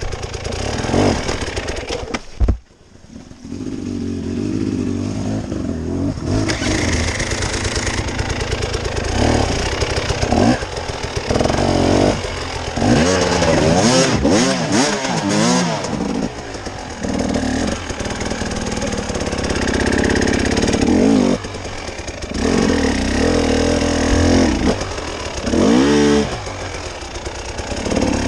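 Off-road vehicle engine revving up and down over and over as it is driven over rough terrain, with a loud knock about two and a half seconds in.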